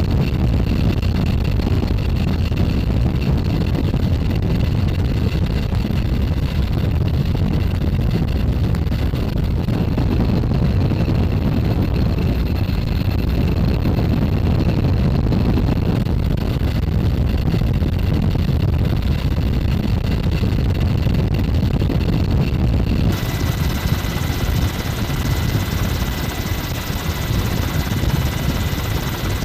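Steady loud rumble of engine and wind noise, with a faint steady machine whine. The sound changes abruptly about 23 seconds in, turning brighter with new steady tones.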